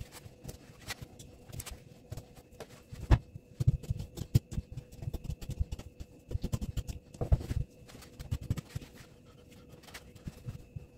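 Boning knife cutting and scraping along pork rib bones while a pork belly is deboned, with irregular clicks and soft thuds of the meat and hands on a stainless steel table, and a sharp knock about three seconds in. A faint steady hum runs underneath.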